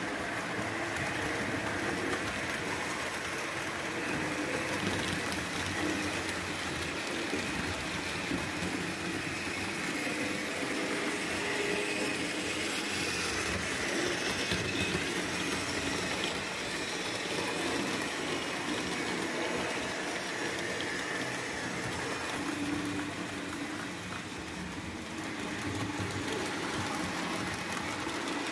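HO-scale model trains running on a layout: a steady whir of the small electric locomotive motors mixed with the rolling rattle of wheels on the track.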